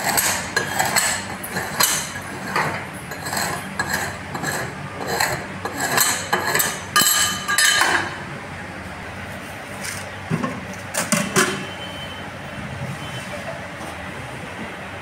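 Metal spatulas scraping and clinking on a frozen steel cold plate, chopping and spreading ice cream in quick, irregular strokes. The strokes stop about halfway through, leaving only a few scattered clinks.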